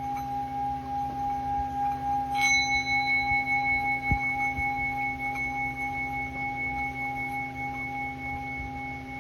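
Small hammered Tibetan singing bowl, about 7.6 cm across, singing a steady, gently pulsing tone as its rim is rubbed. About two and a half seconds in it is struck, adding a higher ring that sustains. A light knock comes about four seconds in.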